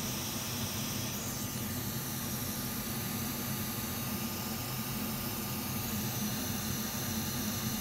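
Hot air rework station blowing a steady hiss over a chip to melt its solder for removal, with a constant low fan hum beneath; the higher part of the hiss changes about a second in.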